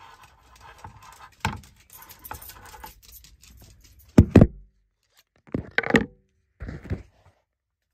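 Handling noises: a bayonet picked up and worked in its scabbard, with scattered clicks and scrapes and then loud clunks about four and six seconds in.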